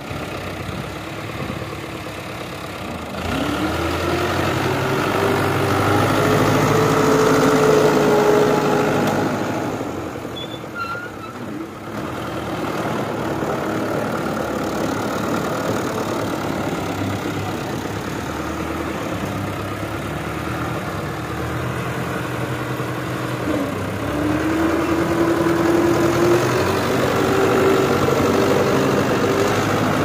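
Fiat 640 tractor's diesel engine working under load as it drags a rear blade through manure and earth. It revs up about three seconds in, eases off around ten seconds, runs steadily, then revs up again near the end.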